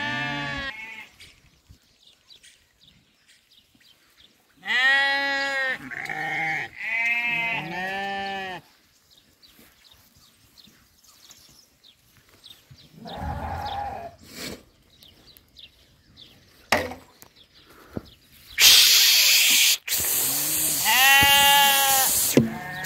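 Lambs bleating: one bleat at the start, a run of four about five seconds in, a lower call mid-way and one more near the end. Near the end a loud rushing noise covers the microphone for about four seconds.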